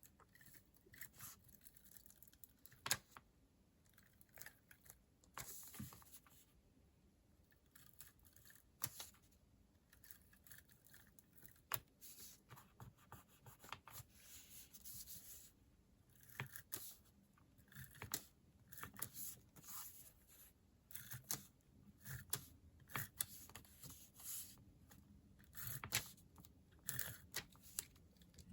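Quiet paper and sticker handling at a desk: scattered soft taps and ticks with short tearing and peeling rustles, like stickers being pulled from their sheets and pressed onto planner pages.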